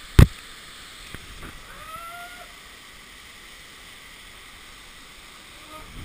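Steady rush of a large mountain waterfall and its stream. A sharp, loud knock against the camera comes just after the start, and a faint distant voice calls out around two seconds in.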